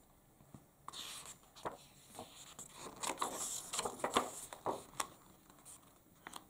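A paper picture-book page being turned and pressed flat by hand: soft rustling and crinkling of paper with a few light clicks, starting about a second in and busiest in the middle.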